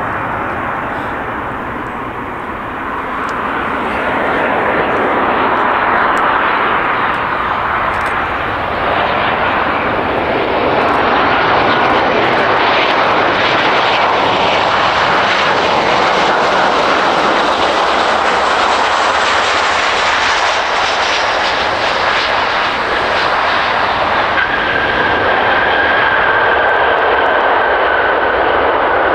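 Jet airliner's engines running loud and steady, growing louder in the first seconds, with a whining tone joining about three quarters of the way through.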